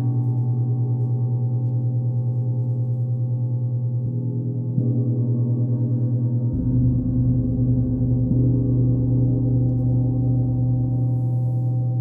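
A thick, heavy UFIP Targo gong ringing with a bright, brittle tone over a strong low hum. It is struck again a few times, so that the sound swells and a deeper low tone joins in about six and a half seconds in.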